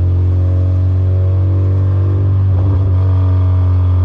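Car driving at a steady speed: a constant low engine drone with road noise, its pitch holding nearly level and wavering slightly a little past halfway.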